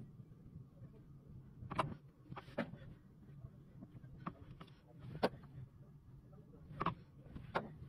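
Handling of raw amber pieces: about half a dozen sharp, light clicks and knocks at uneven intervals over a low steady hum.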